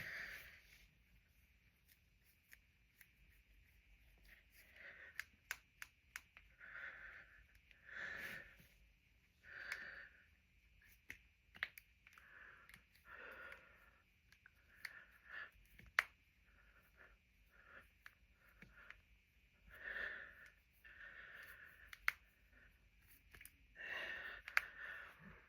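Knuckles and finger joints cracking: a dozen or so sharp pops at irregular intervals, the sharpest about 16 seconds in. Soft breathy sounds come between them.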